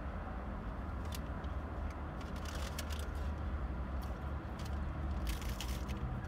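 Low, steady rumble of road traffic, with a pickup truck and cars driving slowly past, heard from inside a parked car, with a few faint clicks.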